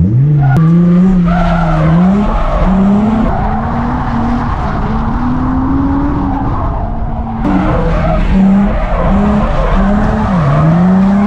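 Drift car engine revving hard, its pitch climbing and dropping several times as the car slides, over the steady hiss of skidding, squealing tyres.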